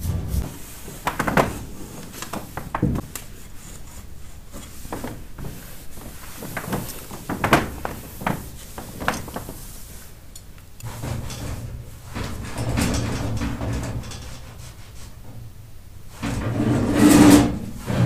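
Wood-burning stove being wiped down with a cloth: rubbing strokes with scattered knocks and clatters of its metal parts and tray, and a louder scrape and clatter near the end.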